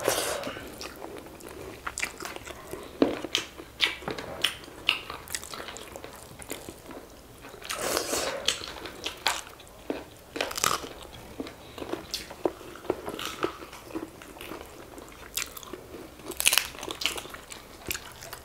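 Two people eating rice and pork curry with their hands: chewing and irregular sharp, crunchy bites, with louder crunches now and then.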